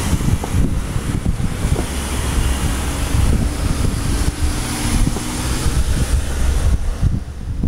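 Cars passing close by on a street, their engine and tyre noise mixed with wind buffeting the microphone.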